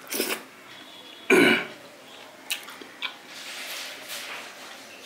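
A person's short, loud throat sound about a second and a half in, falling in pitch, with a weaker one at the very start, followed by a couple of sharp mouth clicks while eating.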